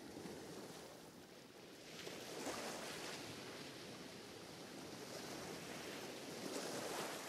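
Recorded ocean waves from a relaxation track: a steady wash of surf that dips and then swells again about two seconds in.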